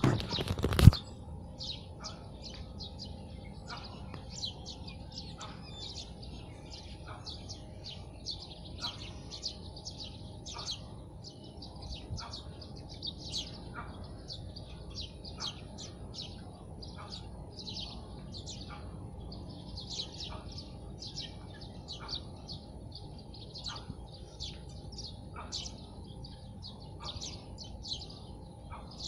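Small birds chirping continuously, many short high chirps a few each second, over a faint steady high insect drone. A loud single thump about a second in.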